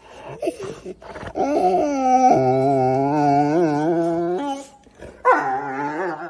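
A dog making long, wavering howl-like vocalizations: a drawn-out call through the middle and a shorter one near the end.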